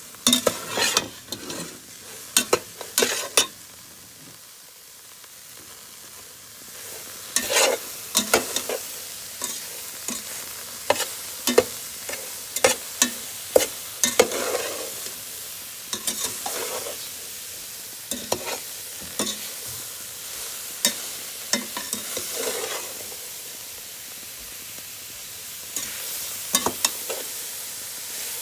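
A perforated spoon stirs and turns fresh elderberries and sugar in a stainless steel pot, making repeated scrapes and clicks against the pot and the rattle of berries. Underneath, a steady hiss builds a few seconds in as the pot heats on the stove.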